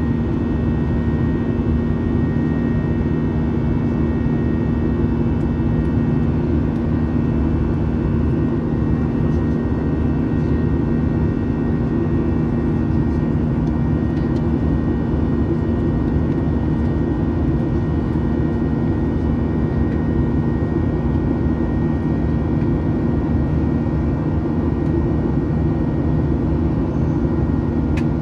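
Steady engine and airflow roar inside the cabin of a Boeing 737-800 with its CFM56-7B turbofans, with a low steady hum and a faint high whine, unchanging throughout.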